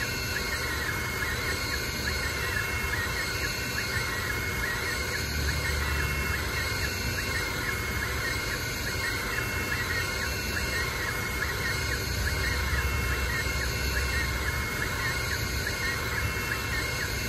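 Ortur Laser Master 3 diode laser engraver running a raster engraving job: its stepper motors whine in short, quickly repeating sweeps as the head shuttles back and forth over the wood, over a steady hum.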